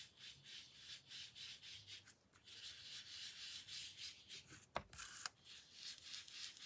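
Mini foam ink blending tool rubbed in short strokes over the edges of embossed velvet cardstock, making a soft, pulsing scratchy rub. There are a couple of light clicks about five seconds in.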